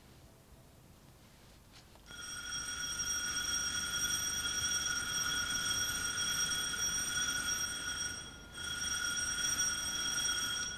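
Electric door buzzer held down: a steady high buzz that starts about two seconds in, stops briefly near the end, and sounds again.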